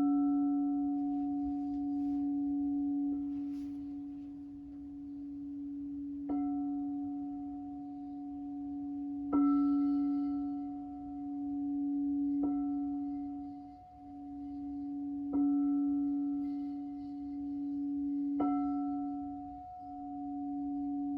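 Crystal singing bowls being struck about every three seconds, about six times, each strike sharp at the start. The bowls ring on in one steady low hum with higher tones above it, and the ringing swells and fades slowly between strikes.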